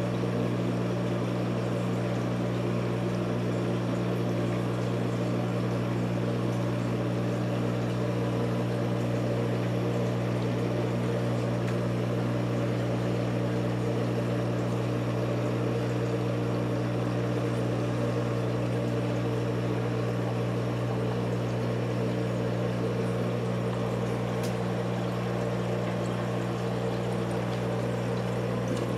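Reef aquarium's pumps and sump running: a steady electrical hum with water flowing underneath it.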